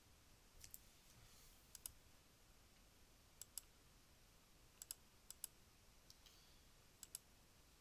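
Computer mouse clicking: about seven sharp clicks or quick pairs of clicks, spread unevenly, against faint room hiss.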